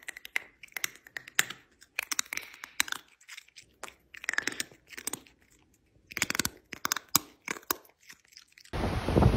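A cat chewing crunchy food right at the microphone: crunches and mouth clicks in short bursts, with a pause of about a second past the middle.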